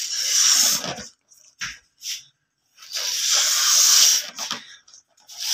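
A child blowing up a latex balloon by mouth: a long breathy blow into the balloon, a couple of short quick breaths, then a second long blow, and a third starting near the end.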